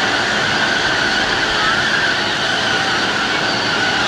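Kiddie car ride's rotating turntable running: a steady mechanical rumble with a slightly wavering high whine.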